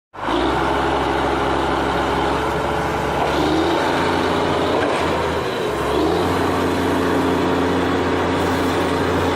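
Diesel semi truck engine cutting in suddenly and running steadily, its pitch shifting slightly about three seconds in and again about six seconds in.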